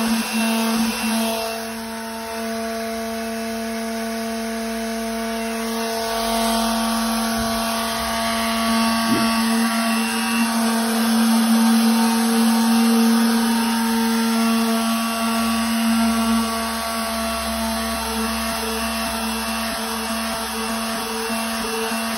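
Handheld orbital sander running with a steady motor hum, its pad sanding a blue rubber pool-table cushion flush with the wooden rail.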